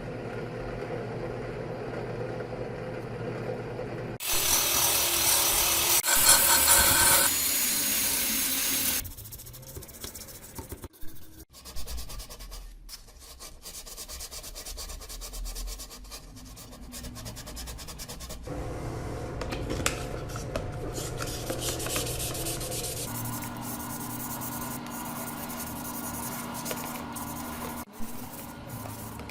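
Abrasive rubbing and scraping, in several short takes that change every few seconds. A louder, hissing stretch runs from about four to nine seconds in.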